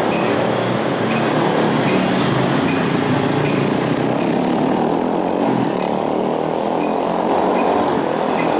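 Ferromex diesel freight train running: a steady loud rumble with faint light clicks now and then.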